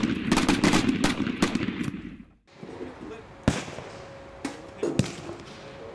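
A line of shotguns firing rapidly, shots overlapping at about four or five a second, stopping abruptly a little past two seconds in. Then a few sharp single knocks over a quieter background.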